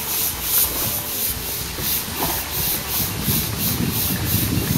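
Steady rush of water pouring from an outfall pipe into a pond, with a rhythmic splashing pulse about two to three times a second from a paddlewheel aerator churning the water.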